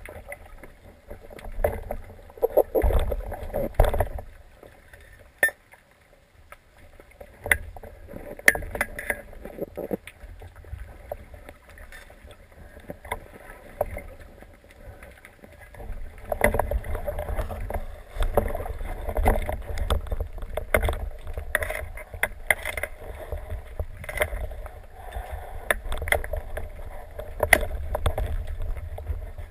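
Water sloshing and rumbling around a speargun-mounted camera just below the surface, with irregular knocks and clicks from the gun being handled. It gets busier and louder about halfway through.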